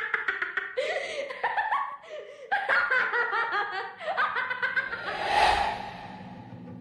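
High-pitched laughter in quick repeated bursts, with a rising whoosh about five seconds in, after which a low droning note takes over.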